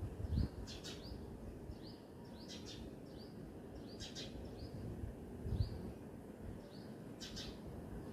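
Small birds chirping: a steady series of short, high chirps with a few louder, harsher calls among them, over a low outdoor rumble with a couple of soft thumps.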